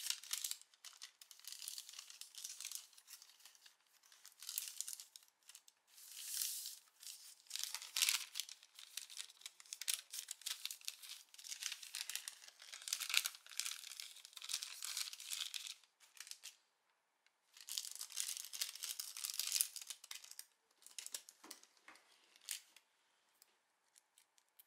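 Thin calligraphy practice paper rustling and crinkling as it is folded and pressed around a small package, in uneven bursts with a short pause about two-thirds of the way through. Near the end only a few faint ticks and handling sounds.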